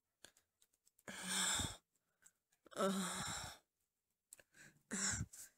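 A voice actor growling and breathing hard in pain through clenched teeth: two long breathy growls about a second apart, then a shorter one near the end.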